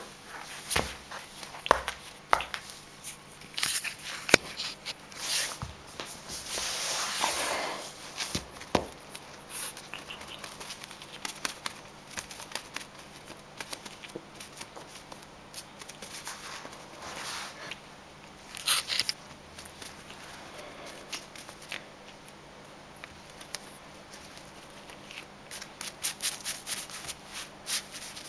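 Irregular rustling, scraping and tapping of a kitten playing with a long feather on the floor: the feather brushing and the kitten's paws scrabbling, with a longer rustle about seven seconds in and quicker ticking near the end.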